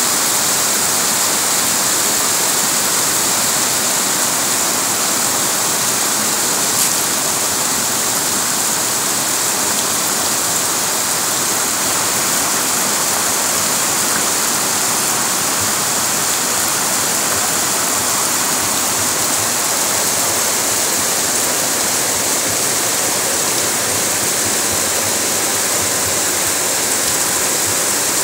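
Heavy rain pouring down with runoff water rushing along a flooded street: a loud, steady hiss that does not let up.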